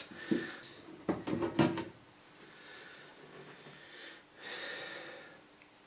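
A few light knocks of a screwdriver and hands on a cassette deck's metal chassis while the bottom-plate screws are taken out, then a soft rustle of handling about four seconds in.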